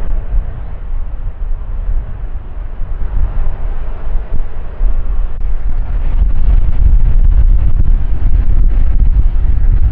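Wind buffeting the microphone outdoors: a heavy, gusty low rumble that grows louder about halfway through.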